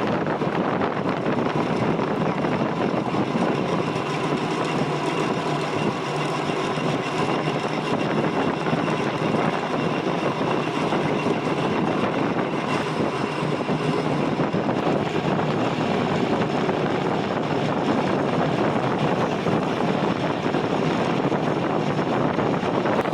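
Stick (arc) welding on a steel shaft: the arc crackles and sizzles steadily as the rod burns.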